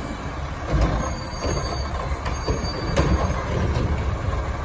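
Automated side-loader garbage truck's arm dumping a trash cart and setting it back down: the truck's engine runs under a string of metal clanks from the cart and arm, with a faint high squeal.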